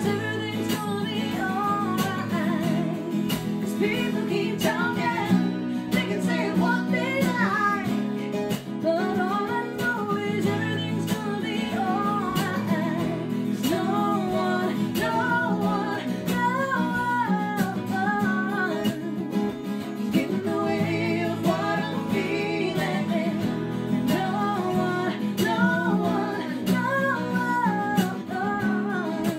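Two acoustic guitars strummed in a steady rhythm, with a woman and a man singing together.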